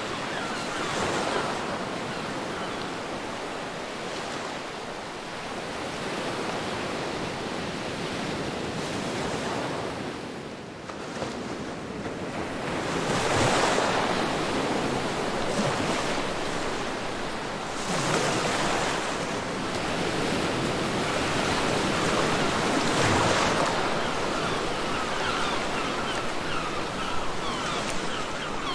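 Ocean waves breaking on a beach, a steady wash of surf with a louder wave swelling and crashing every few seconds, under a light wind.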